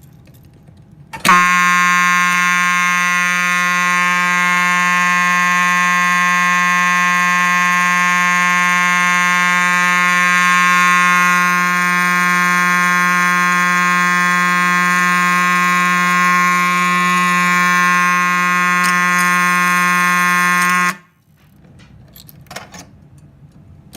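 Simplex 2901-9833 fire alarm horn strobe sounding a continuous, steady horn tone rich in overtones. It starts about a second in, holds without pulsing for about twenty seconds, then cuts off suddenly.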